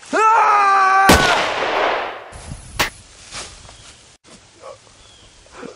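A long held shout, then about a second in a single loud gunshot with a long echoing tail, likely a dubbed-in sound effect for the wooden prop rifle. A shorter sharp crack follows near the three-second mark.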